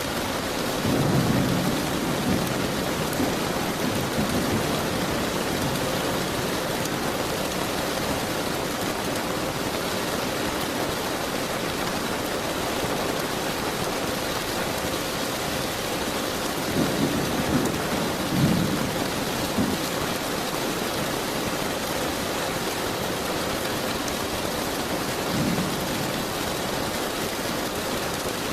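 Steady heavy rain with rolls of thunder, the thunder swelling in low rumbles about a second in, around the middle and again near the end.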